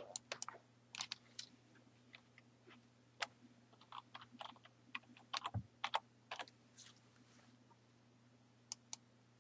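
Computer keyboard typing: keys tapped in short irregular runs, with a pause about seven seconds in and a few more taps near the end. A faint steady hum sits underneath.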